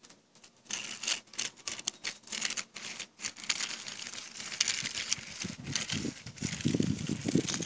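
Small plastic toy car pushed by hand through loose dry dirt and pebbles: a rapid, irregular run of crunching and scraping grit that starts about a second in and gets heavier near the end.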